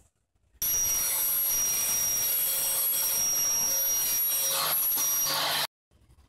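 Table saw running steadily with a high, constant whine, starting and stopping abruptly.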